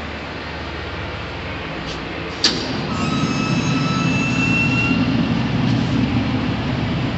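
DoAll 60-3 vertical contour bandsaw switched on with a sharp click about two and a half seconds in, over a steady shop hum. Its motor and blade then run with a steady low rumble, plus a high whine for the first couple of seconds.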